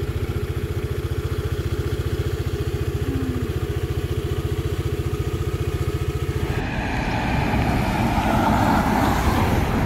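Motor scooter engine running while riding, with a steady, even low pulsing beat. About two-thirds of the way through, the sound changes abruptly to a louder, rougher engine sound.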